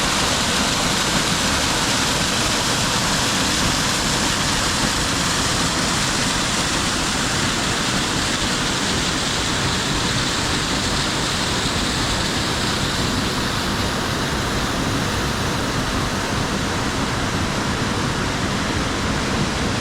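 Waterfall: water pouring steadily down the falls in an even, unbroken rush.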